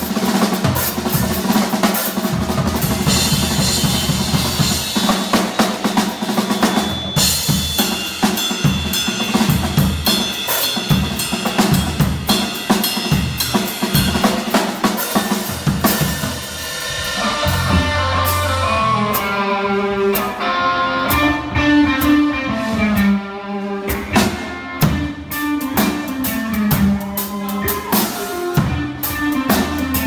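Drum kit played in an improvised blues drum solo, with busy snare and bass-drum strokes, rimshots and ringing cymbals. From about halfway through, another instrument joins with a melodic line of bending notes over the drums.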